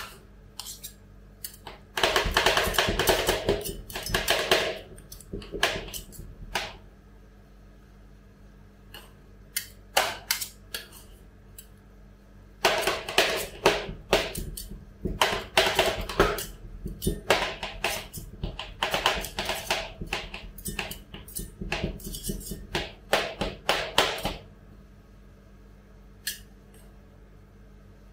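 Two metal spatulas chopping banana into ice cream base on a steel rolled-ice-cream cold plate: rapid clacking of blade edges on steel in two long spells, one of about three seconds and one of about twelve seconds, with single taps and scrapes in between.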